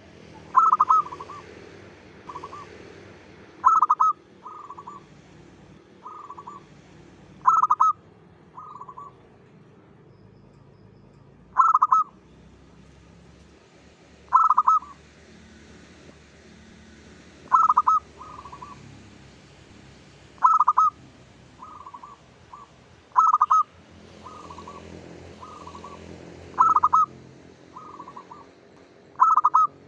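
Zebra dove (perkutut) cooing song: a phrase of one loud note followed by a few softer, quicker coos, repeated ten times about every three seconds.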